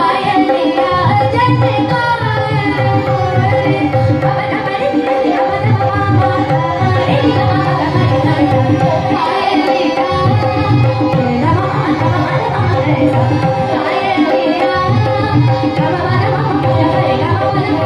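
Indian classical vocal performance: a young girl singing gliding melodic lines over a steady tanpura drone, with tabla keeping a rhythmic cycle whose deep bass strokes pause briefly every few seconds.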